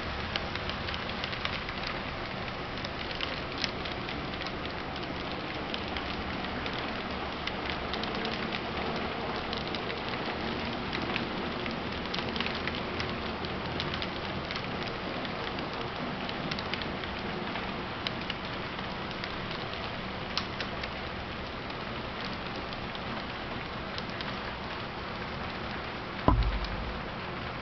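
Model train of covered hopper cars rolling past on the layout track: a steady rattle of small wheels with many light clicks from the rail joints. Near the end, a single low thump.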